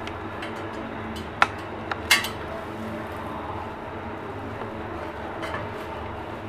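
Steel mesh strainer clinking against a steel pot, three short sharp knocks about one and a half to two seconds in, as a cloth bundle of chhena is twisted and pressed to squeeze out the whey.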